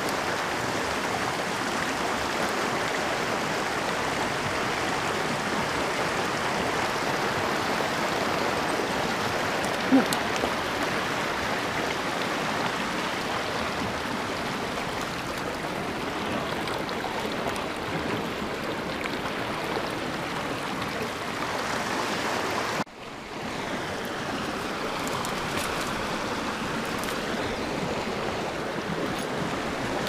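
Small, shallow mountain creek running over rocks and cobbles: a steady rush of water. One brief knock about ten seconds in, and the sound drops out for a moment about two-thirds of the way through before the water resumes.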